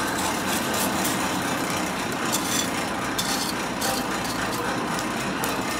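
Forge bellows blowing air up through a burning coke fire to make it burn hotter: a steady rushing whir of air with no break.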